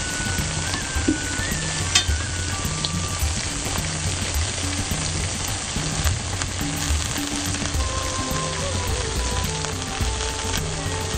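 Food sizzling steadily, with soft background music and a repeating low beat.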